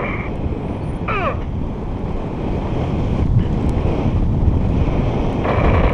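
Wind buffeting the microphone during a paraglider flight, a steady rumbling rush. About a second in a short electronic tone sweeps downward, and near the end a steady electronic tone sounds for about half a second.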